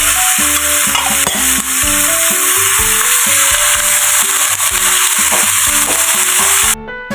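Sliced beef sizzling loudly in hot oil in a pan as a spatula spreads it out. The sizzle cuts off suddenly near the end.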